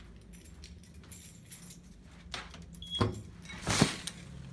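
A glass double door is pushed open, with light rattling and clicks from its handle and latch, a knock about three seconds in, and a brief loud rush of noise just after as it swings open to the outside.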